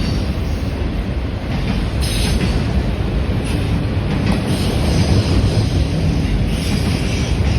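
A CN freight train rolling past loud and close, its steel wheels running on the rails in a steady rumble, with higher hiss coming and going.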